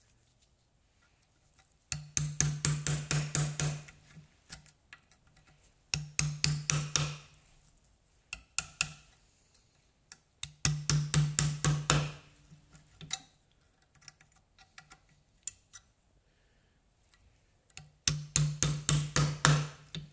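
Four bursts of quick hammer blows on metal, about five a second, with a low ring under the strikes: breaking up an old rear hub bearing to get it out.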